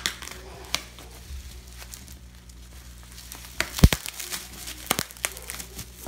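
Plastic bubble wrap being cut with scissors and torn open by hand: crinkling with scattered sharp snaps, the loudest cluster just before four seconds in.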